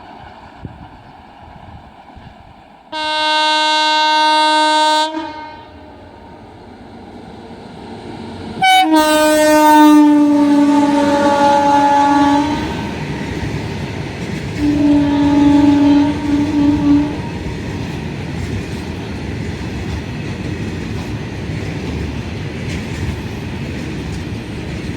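Indian Railways train horn sounding three long blasts: one about three seconds in, a louder one about nine seconds in that drops slightly in pitch as it goes, and a third, shorter one that breaks up at its end. From the second blast on, the train runs past with a steady rush of wheel and rail noise.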